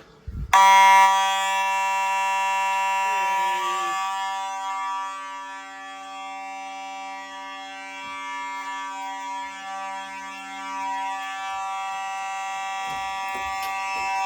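Fire alarm horns sounding together in a steady, continuous tone with several pitches, during a test of the alarm system. The tone starts abruptly about half a second in, is loudest for its first second, then holds steady.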